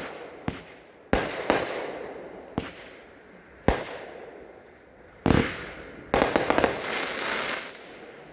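Consumer firework cake firing: single sharp bangs of shots and shell breaks every second or so, then a dense crackling burst of many quick pops about six seconds in that fades away.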